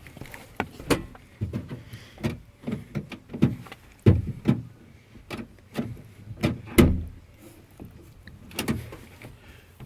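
Irregular clicks and clunks from a Ford Windstar minivan's rear side door being opened and handled. The two loudest knocks come about four and seven seconds in.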